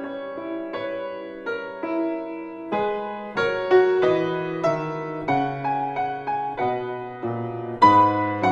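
Piano music: a melody in separate struck notes and chords over low held bass notes, each new note starting sharply and fading.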